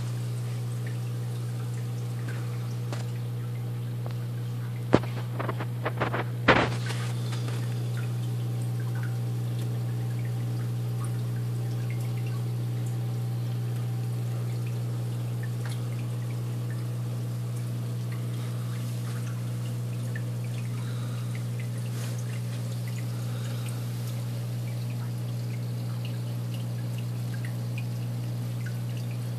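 Aquarium filter running: a steady low hum with water pouring and trickling into the tank. A few sharp knocks come between about five and seven seconds in.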